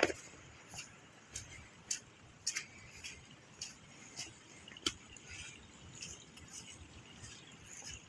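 Footsteps on wet ground at a walking pace, one step about every half second, with a sharp knock right at the start.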